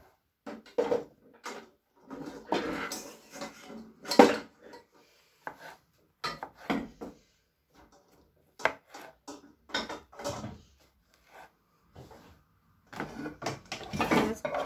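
Serrated knife sawing through button mushrooms on a plastic chopping board: irregular cuts and taps of the blade against the board, with pauses between strokes. Near the end comes a busier stretch of clatter and handling as the slices are cleared off the board.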